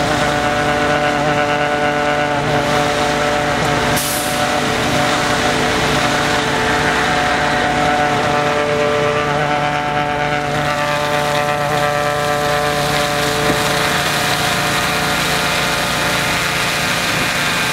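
Engine-driven ice-crushing machine running steadily, blowing crushed ice through a large flexible hose that sprays it out as snow: a loud, even machine drone with a rushing hiss.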